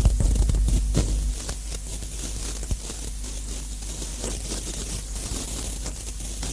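Harsh experimental noise recording: a dense mass of crackling, scraping, static-like noise studded with small clicks. A loud low hum under it drops away about a second and a half in, leaving quieter scraping and crackle.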